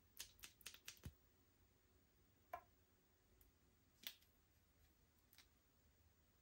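Faint sticky clicks and pops of slime being pressed and stretched by hand: a quick cluster of clicks in the first second, then single clicks about two and a half and four seconds in.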